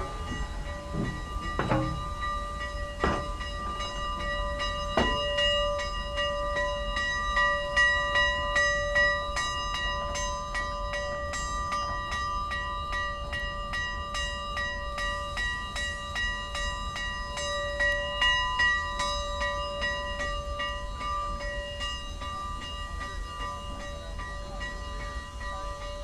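Steam locomotive bell ringing over and over, a few spaced strokes at first and then steady ringing that swells with each stroke, over a steady low rumble from the locomotive. Played back from a vinyl record.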